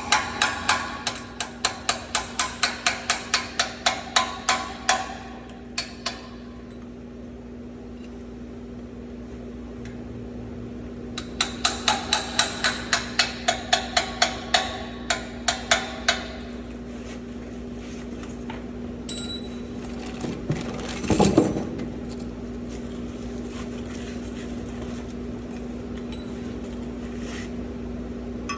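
Hammer striking metal at about four blows a second with a ringing clang, driving new bushings into the truck's brake assembly with a homemade tool. The blows come in two runs of several seconds with a pause between. A steady hum runs underneath, and there is a single clank about 21 seconds in.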